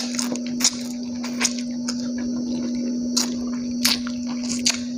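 Close-up wet chewing and lip-smacking of a mouthful of food eaten by hand, in irregular moist clicks, over a steady low hum.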